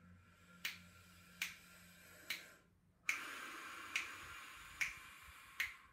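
A slow, faint breath in over four beats, then air blown out steadily through lips rounded as for 'oo' over four beats, heard as a louder hiss from about three seconds in. A sharp click marks each beat, about one every 0.8 seconds.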